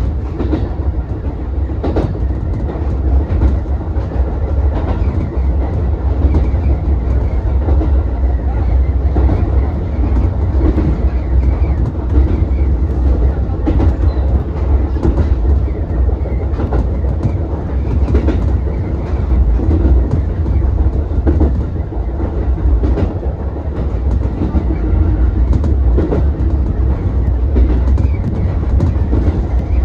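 Ichibata Electric Railway 7000-series electric railcar running along the line, with a steady low rumble from wheels and track and a faint steady whine. The wheels clack over rail joints every few seconds.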